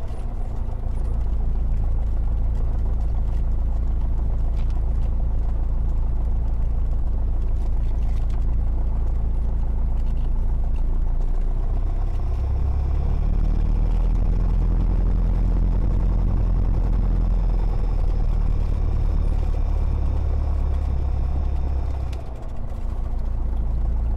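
The Cessna 172's single piston engine and propeller running at low taxi power, a steady drone heard inside the cabin. The drone dips briefly and changes slightly in pitch at a couple of points.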